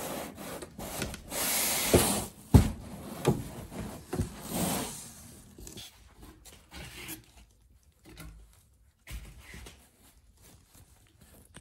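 Non-woven fabric bag rustling and scraping as hands pull and wrestle it around a desktop PC tower, with a few sharp knocks in the first half, the loudest about two and a half seconds in, then quieter rustles and a single thump near the end.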